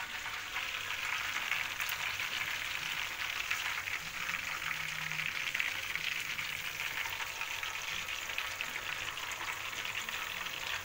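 Tempeh and tofu deep-frying in hot oil in a wok: a steady, dense crackling sizzle of bubbling oil.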